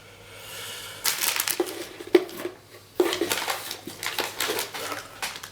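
Plastic packaging and food pouches from a ration pack rustling and crinkling as they are handled and pulled out, in two spells of irregular crackling.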